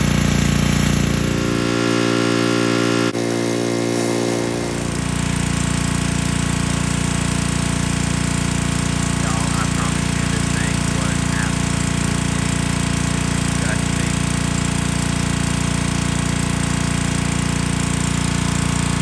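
Small gas engine of a pressure washer running steadily under load, its note changing for a few seconds near the start before settling back to a constant drone.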